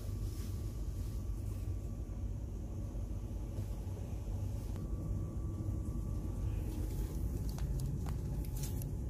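Steady low rumble of shop background noise with a faint steady hum, and a few light clicks near the end as a plastic-covered vest is handled.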